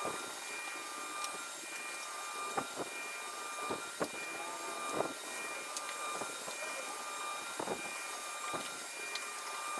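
A steady machine-like hum with a few faint high tones held throughout, over which come scattered soft knocks and scrapes as a paintbrush is worked along the wooden frame.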